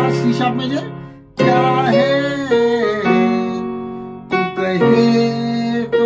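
Electronic keyboard playing a melody of held right-hand notes over sustained left-hand chords in G-sharp minor. It comes in phrases, with short breaks about a second in and again about four seconds in.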